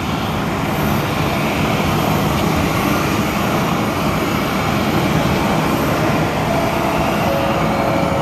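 Steady, even roar of an Airbus A320's CFM56 jet engines on final approach, with a faint thin whine coming in about six seconds in.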